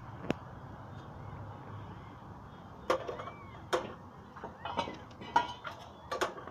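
Newborn kitten giving short, high mewing squeaks, mixed with several sharp clicks from about three seconds in; the loudest click comes just after the start.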